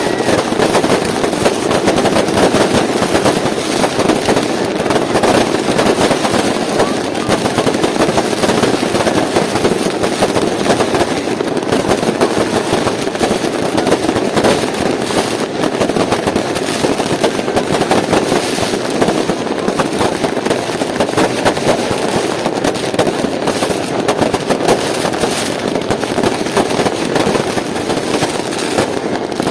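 Many fireworks and firecrackers going off at once in a dense, continuous barrage, the bangs and crackles overlapping into a steady din.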